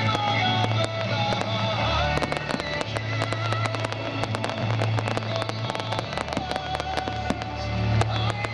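Fireworks bursting with rapid crackling that thickens from about two seconds in, over music with sustained tones and a heavy bass.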